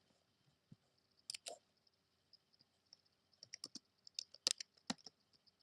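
Scattered light clicks and taps: a pair about a second in, then a quicker run of clicks near the end.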